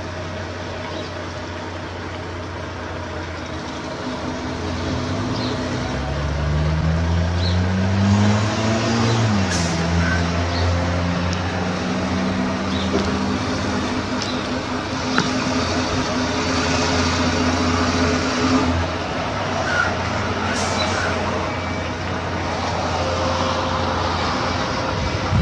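Diesel engine of a tractor unit pulling a loaded tipper semi-trailer at low speed. The engine revs up from about five seconds in, drops back sharply a few seconds later, then runs steady. Two short air hisses come from the brakes, one just after the revs drop and one near the end.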